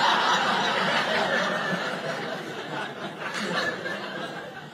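Audience laughing, the laughter dying down gradually.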